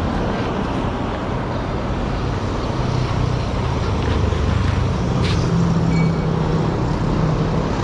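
An engine running steadily, its hum shifting a little in pitch partway through.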